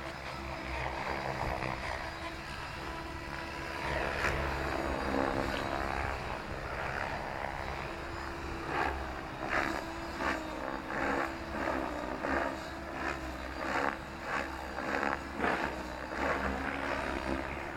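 Radio-controlled 3D helicopter flying at a distance, its rotor and motor sound rising and falling. From about halfway on it comes in short surges, about one or two a second, as the blade pitch is worked through aerobatic manoeuvres.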